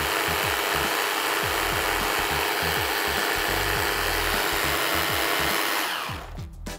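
Hand (immersion) blender running steadily as it purées a melon-and-cream ice-cream base in a tall jug, then switching off about six seconds in.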